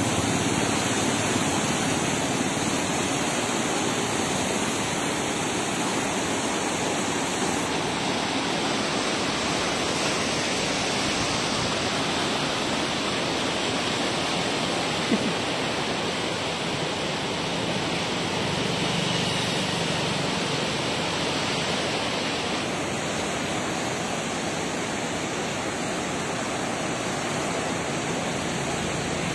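Floodwater of the Koshi River rushing and churning through the barrage: a steady, unbroken noise of turbulent water.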